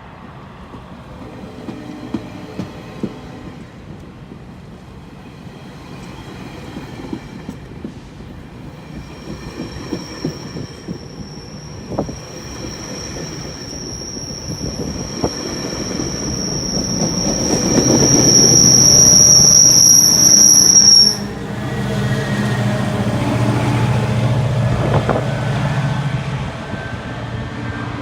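GO Transit train at a station giving off a steady high-pitched squeal. The squeal builds for about ten seconds and cuts off suddenly, followed by the deep rumble of the locomotive.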